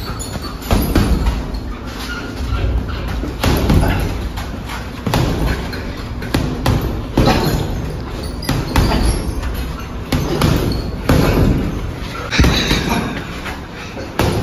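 Gloved punches landing on a hanging heavy bag, a series of dull thuds at about one to two a second, often in quick pairs as combinations.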